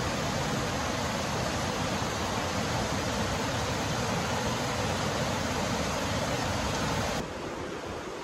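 Heavy rain falling steadily, a constant even hiss. About seven seconds in it suddenly drops to a quieter, duller hiss.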